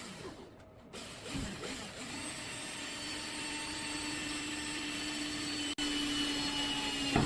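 Cordless drill with a 3/16-inch bit drilling a pilot hole, its motor running steadily from about a second in and stopping just before the end, with a brief break near the six-second mark.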